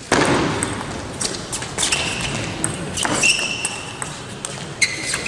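Table tennis rally: the celluloid-type ball clicking sharply off the rackets and table in a quick exchange, with players' shoes squeaking briefly on the court floor several times.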